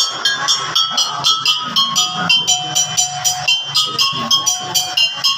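Music with a fast, steady ticking beat and held melodic notes.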